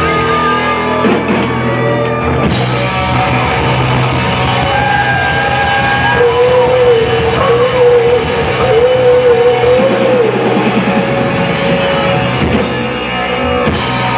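Live rock band playing, with an electric lead guitar holding long, wavering bent notes over drums and bass.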